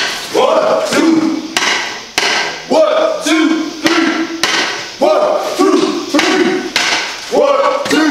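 Marching drumline of snare and bass drums playing a repeated cadence: sharp strikes and pitched drum tones in a pattern that recurs about once a second.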